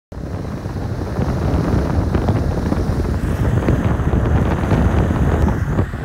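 Wind buffeting the microphone over the road noise of a car driving on a wet highway.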